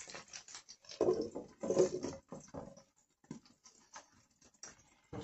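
Meat cutlets frying in oil in a non-stick pan, crackling and spitting steadily. There are two louder clatters about one and two seconds in as a glass lid goes onto the pan, and the crackling is quieter from about three seconds on.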